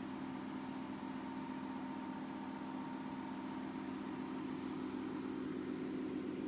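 A steady, even low hum over a faint hiss, unchanging throughout, like a motor or engine running.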